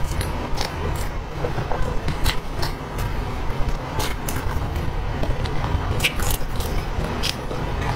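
Close-up eating sounds of soft cream cake: chewing and lip smacks with irregular sharp clicks, over a steady low rumble.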